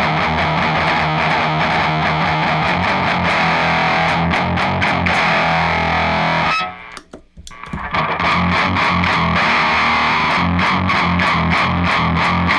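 Electric guitar played palm-muted through a DAPHON Heavy Metal E20MT, a Boss HM2-style distortion pedal: fast, heavily distorted chugging with a harmonic ringing out, which comes from the pedal's mid-range notch. The playing stops briefly about six and a half seconds in, then starts again.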